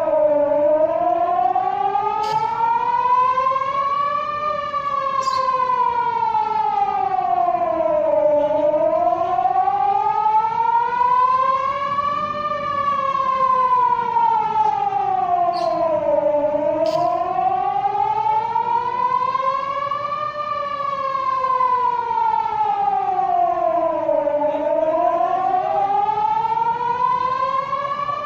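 Emergency public warning siren sounding a wail: a single loud tone that rises slowly for about four seconds and falls for about four seconds, over and over. This is a test of the warning system.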